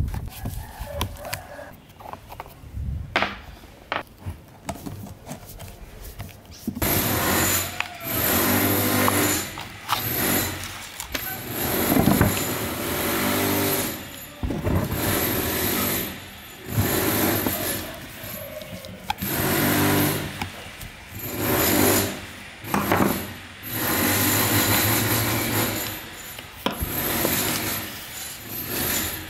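Hand tool work on an old electric fan motor and its metal bracket: scattered clicks and knocks at first, then about seven seconds in a run of repeated rasping strokes, each a second or two long with short pauses between.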